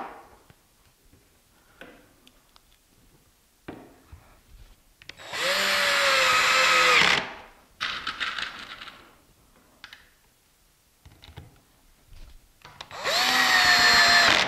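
Black & Decker cordless drill/driver driving hinge screws into wood: two runs of about two seconds each, about a third of the way in and near the end, the motor whine sagging slightly in pitch as each screw tightens. Light knocks and clicks of handling between the runs.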